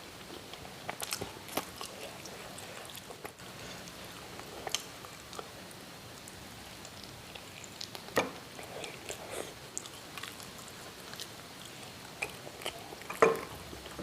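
Close-miked chewing and wet mouth sounds of someone eating siomay and bakso tahu: scattered soft smacks and clicks, the loudest ones about eight seconds in and near the end.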